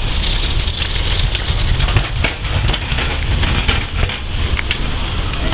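Street noise: a steady low rumble, as from vehicles standing nearby, with scattered clicks and knocks throughout.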